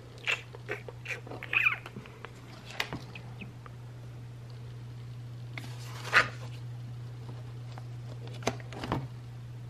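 A spiral-bound paper notebook being opened and its pages flipped over, giving several brief papery rustles and flaps, the clearest about six seconds in and near the end, over a steady low hum.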